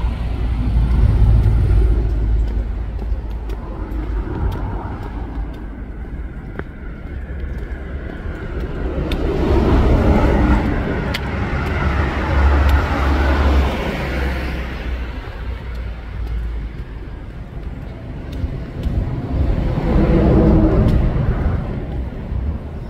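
Cars passing on a street, their engine and tyre noise swelling and fading about three times over a constant low rumble.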